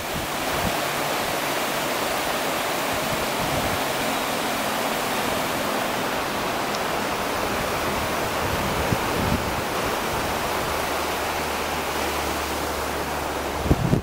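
Rocky mountain river rushing over rapids: a steady, even rush of water. A brief low bump near the end.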